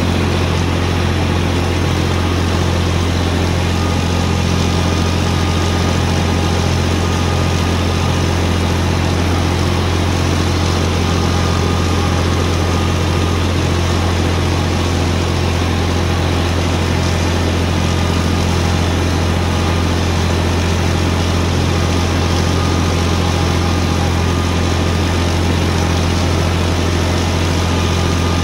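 Farm tractor's diesel engine running at a steady speed, heard from the driver's seat, with a low hum that does not change while it drives a mower through the rows.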